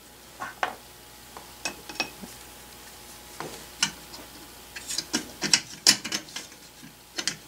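Light, irregular metal clicks and taps from small brass engine parts and a light wire spring being handled and fitted onto the cylinder's pivot stud of a model steam engine. The clicks are scattered at first and come thicker about five seconds in.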